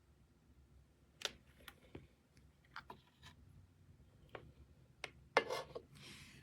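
Faint scattered clicks and taps with a short rustle a little past five seconds, the sound of small objects being handled.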